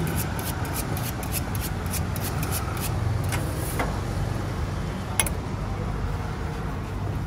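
A long knife being honed on a sharpening steel: a quick run of short metallic scrapes over the first three seconds, with one more stroke about five seconds in. A steady rumble of street traffic lies underneath.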